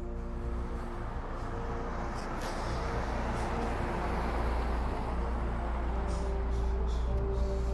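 Street traffic: a passing vehicle's road noise swelling to a peak about midway and then fading.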